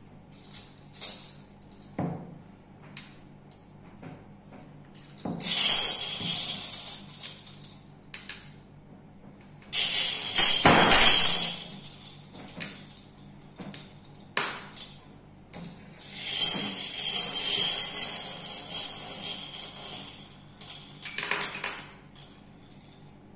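Glass marbles clinking and rattling together in several jingling bursts, with scattered single clicks between them, as marbles are picked up and pressed one by one into slime.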